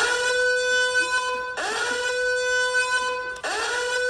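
Sound effect played through a phone speaker: a buzzy pitched tone that slides up and then holds steady, sounded three times in a row.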